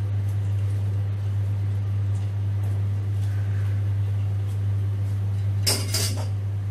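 Metal cooking utensils and a stainless steel pot clinking against cookware in a brief cluster about six seconds in, over a steady low hum.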